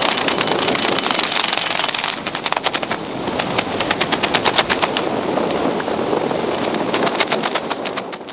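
Wind buffeting the microphone of a skydiver's camera under an open parachute: a loud, steady rush. From about two seconds in, a rapid flapping rattle runs through it.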